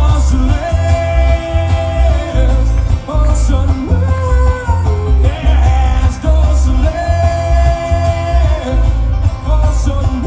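Live bluegrass string band playing, with banjo, acoustic guitar, mandolin and upright bass, under a sung vocal line with long held notes. The bass is heavy throughout.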